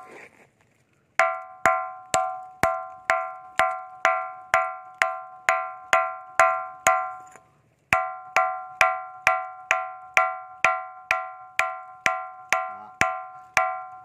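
A ringing rock, a 'bell stone' boulder, knocked repeatedly at about two strikes a second. Each strike gives a clear, bell-like metallic ring that fades quickly. The knocking pauses briefly about a second in and again about halfway through.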